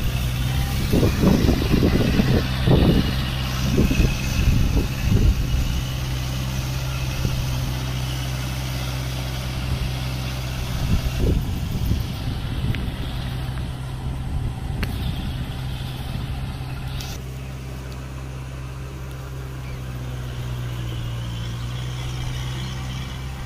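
Kubota MU4501 tractor's four-cylinder diesel engine running steadily while it drives a rotavator through wet, muddy ground, with uneven louder rumbles over the first few seconds and once more about eleven seconds in.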